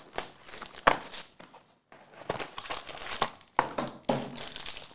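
Cellophane shrink wrap and a foil trading-card pack being handled and torn open, crinkling in irregular bursts. There is a sharp snap about a second in and a short pause near the middle.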